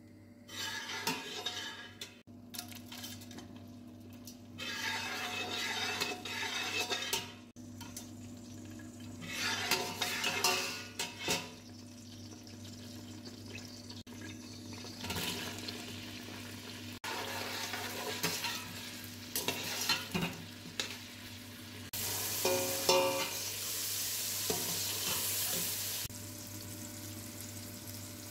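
Sliced onions and green chillies sizzling in hot ghee in a steel pot, with a spoon stirring and clinking against the metal. The sizzle is loudest a little past three-quarters of the way through.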